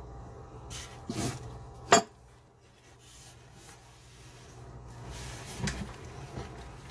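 Hands fitting a faucet's washer and mounting nut under a bathroom sink: rubbing and scraping of parts, with one sharp clack about two seconds in and a smaller knock near the end.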